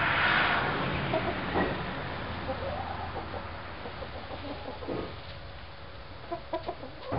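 A hen clucking now and then, in short soft calls that come more often near the end, over a low steady hum. A loud hiss at the start fades away over the first couple of seconds.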